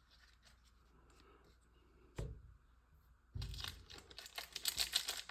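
Trading card pack wrapper being torn open and crinkled, with one thump about two seconds in and dense crackling rustle from about halfway on.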